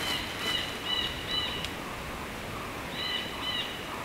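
A small songbird calling a quick series of high notes, in two bouts, over a steady rustle of footsteps in dry fallen leaves.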